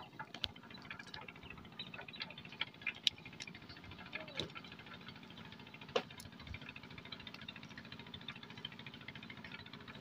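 Wet nylon fishing net being hauled by hand over the side of a wooden boat: faint, scattered small clicks and taps, with a few sharper knocks, the loudest about six seconds in.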